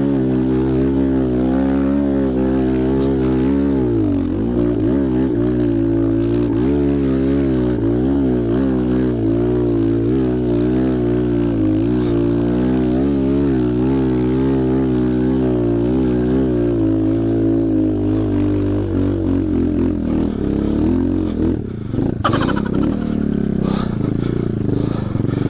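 Dirt bike engine running at low revs, its pitch rising and falling with the throttle as the bike works down a muddy trail. Near the end it drops back and a few knocks and rattles come through.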